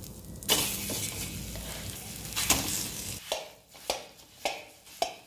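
Soaked, ground fenugreek landing in a hot iron kadai, with a steady hiss for about three seconds. A metal spoon then scrapes and mashes the paste against the pan, about two strokes a second.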